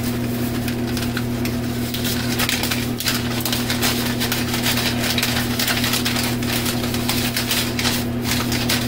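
Packaging being torn open and handled: a dense run of crinkling, rustling and small crackles, over a steady low electrical hum.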